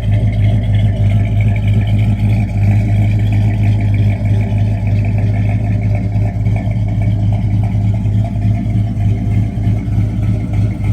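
A 383 big-block Magnum V8 in a 1970 Dodge Super Bee runs steadily through its dual exhaust, with a deep, even rumble.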